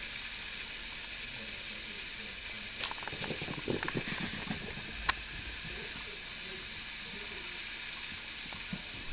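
Steady hiss of a small camcorder's microphone, with a few seconds of rustling and light knocks in the middle and one sharp click about five seconds in as the handheld camera is swung round.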